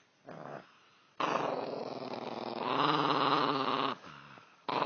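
A dog growling in long drawn-out grumbles: a short one just after the start, a long one from about a second in until nearly four seconds, and another starting near the end.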